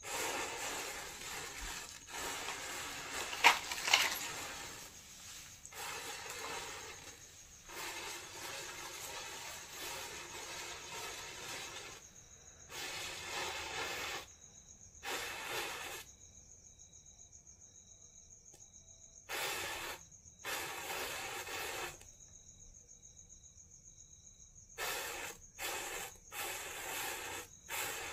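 Row of matchsticks catching fire one after another, hissing and fizzing in spurts that start and stop, with two sharp pops about three and a half seconds in.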